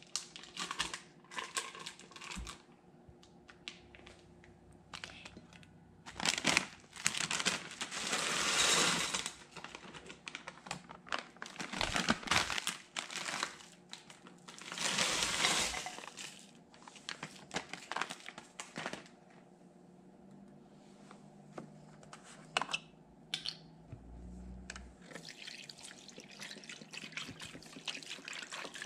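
Ingredients going into a slow cooker's crock: plastic food packaging crinkling and handling clicks, with two longer rushes of frozen diced vegetables spilling from their bags, about a third of the way in and again about halfway. Near the end beef stock starts pouring from a carton into the pot.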